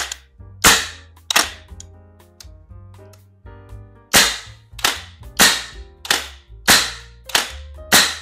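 Sharp metallic clacks from the controls of a VFC HK416A5 gas blowback airsoft rifle as the bolt release and fire selector are worked by hand: three clacks, a pause of about three seconds, then a quick run of about eight, roughly two a second.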